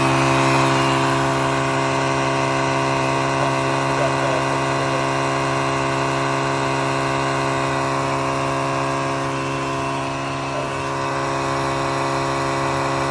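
Etenwolf Vortex S6 portable tire inflator running steadily at a constant pitch, pumping a tire up toward its preset 37 psi.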